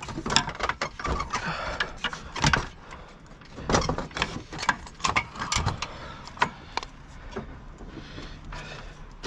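Handling noise of a fiber-optic flat drop cable being worked and fed through a fitting: irregular scrapes, rustles and knocks, quieter over the last couple of seconds.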